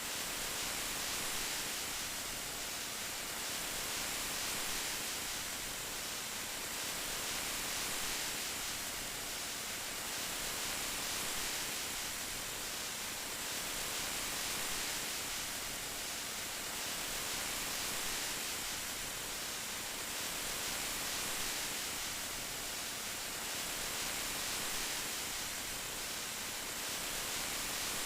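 Steady rain, an even hiss with no separate drops or thunder, swelling gently in loudness every few seconds.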